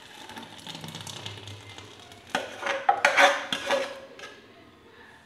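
Thick flan custard poured from a metal pot into a fluted metal flan tin, a soft pouring sound, then a little over two seconds in a run of loud metal clanks and scrapes with brief ringing as the pot and utensil knock against each other and the tin.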